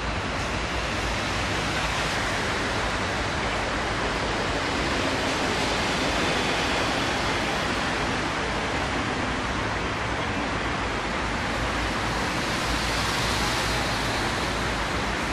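Steady rushing outdoor noise with a low, unsteady rumble underneath, with no single sound standing out.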